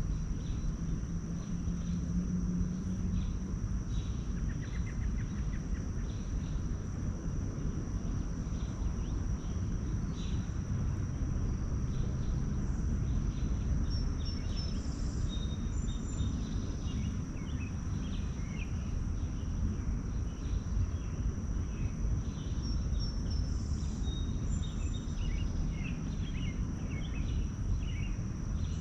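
Outdoor ambience: an insect trills steadily on one high note over a low, steady rumble, while birds chirp here and there, more often in the second half.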